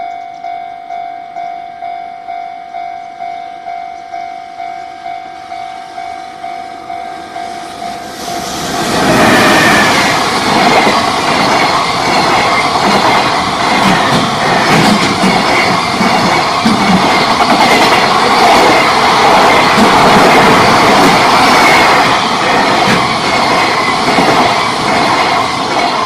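Level crossing alarm bell ringing steadily, about one and a half strikes a second. From about eight seconds in, a JR Freight EF210 electric locomotive and its long train of container wagons pass close by: a loud, steady rush of wheels on rail with clickety-clack over the joints that drowns out the bell until near the end.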